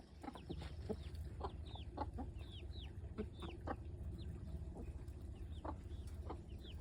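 Three-week-old chicks peeping in short, high, falling notes, several a second, with a mother hen's short low clucks among them, over a steady low rumble.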